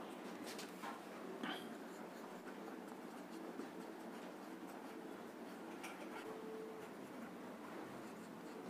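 Marker pen writing on a paper sheet: faint scratching of the tip in short strokes as words are written.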